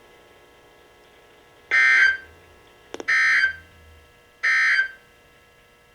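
Three short bursts of Emergency Alert System digital data tones from a weather radio, about a second apart, with a small click just before the second burst. This is the End of Message code that closes the warning broadcast.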